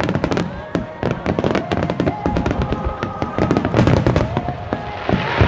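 A dense barrage of aerial firework shells going off, many sharp bangs and crackles a second, with a loud bang near the end. Music plays under the bursts.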